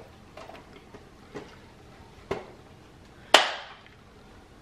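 A plastic measuring cup knocked against the ceramic crock of a slow cooker to empty out the last of the cream: a few light knocks, then one louder, sharper clack with a short ring a little past three seconds in.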